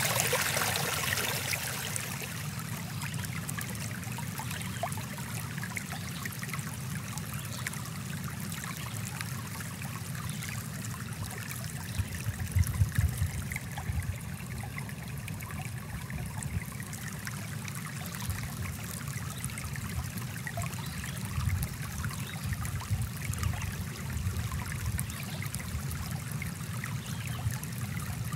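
Small stream running over rocks: a steady rush of water, brighter and louder in the first two seconds, with a few low thuds about halfway through.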